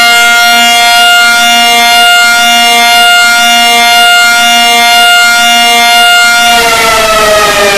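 Loud siren alarm sounding a steady chord of held tones over a lower tone that pulses on and off. About six and a half seconds in, the whole chord starts sliding down in pitch as the siren winds down.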